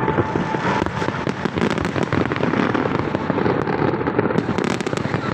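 Fireworks display going off: a dense, continuous run of bangs and crackles with no gaps.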